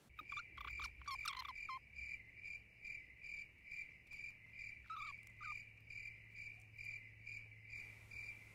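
Cricket chirping, a high chirp repeating about twice a second, over a faint steady low hum.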